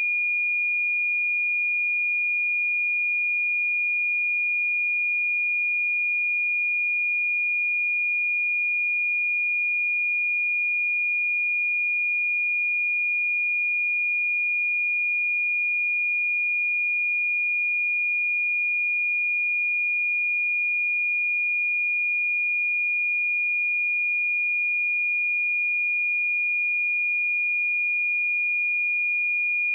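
A 2432 Hz sine-wave test tone: one pure, high-pitched tone held steady at constant loudness.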